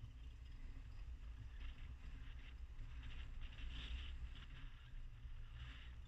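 Vehicle driving up an unpaved gravel road, recorded from a camera mounted on it: a steady low rumble of engine and tyres, with uneven patches of higher crunching hiss that come and go.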